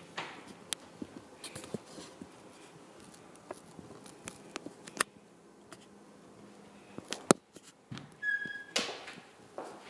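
Footsteps on a bare tile floor with scattered clicks and knocks as a pantry door is opened and shut. There is a sharp click about seven seconds in and a short squeak just after.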